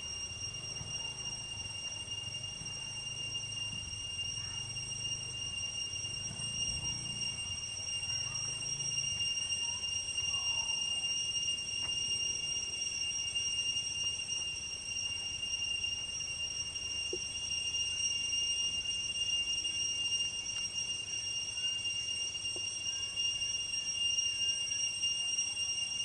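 Cicadas singing in a steady, unbroken high-pitched drone.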